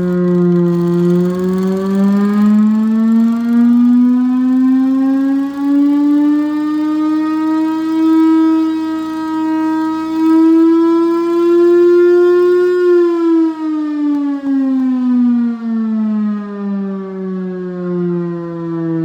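Chrysler Bell Victory air raid siren, driven by a Hemi V8 engine, sounding one loud wailing tone rich in overtones. Its pitch climbs slowly for about eleven seconds as it winds up, then falls steadily as it winds down.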